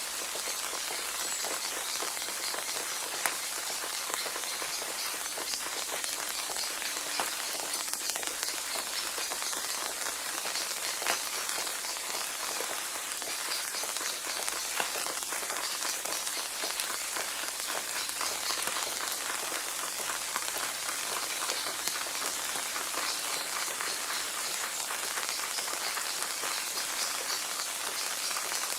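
Steady rain falling on a surface, a constant hiss with many small drop patters and an occasional louder drop.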